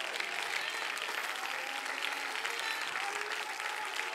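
Congregation applauding steadily: a dense, even patter of many hands clapping.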